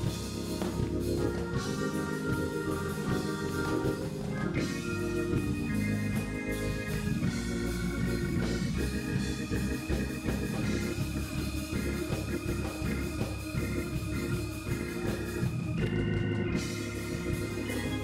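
Instrumental music led by an organ, held chords changing every second or so over a steady beat of percussion.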